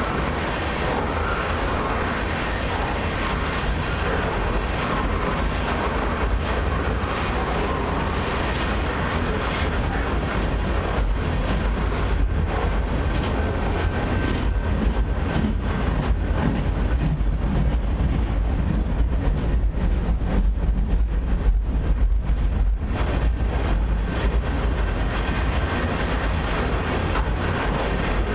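Loaded freight cars (flatcars carrying wind turbine blades) rolling past close by. The steel wheels rumble steadily on the rails, with a run of rapid clacks and knocks over the rail joints through the middle stretch.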